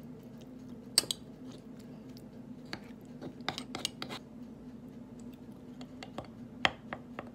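A wooden spoon and a metal spoon stirring a mayonnaise mixture in a small bowl, clicking and scraping against the bowl now and then, the sharpest knock about a second in. A steady low hum runs underneath.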